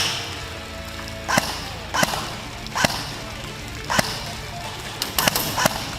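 Airsoft guns firing single shots at irregular intervals, each a sharp snap, with three quick shots close together near the end.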